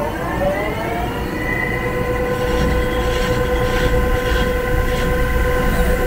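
Wheel-cutting lathe whining as it spins a wheel: the pitch rises over about the first second as it speeds up, then holds steady over a low rumble. A few short scratchy hisses come in the second half.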